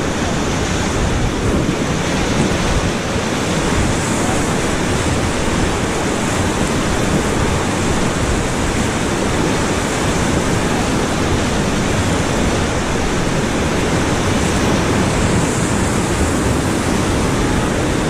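Whitewater rapids of the Beas River rushing steadily around an inflatable raft, a dense unbroken noise of churning water.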